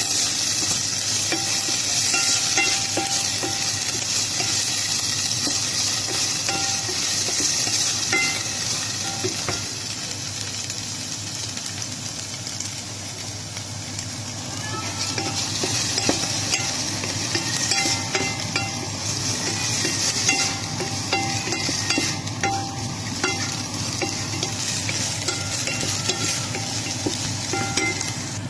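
Diced pork sizzling as it fries in a nonstick pan, stirred and scraped with a wooden spatula. The sizzle eases a little in the middle and picks up again about halfway through.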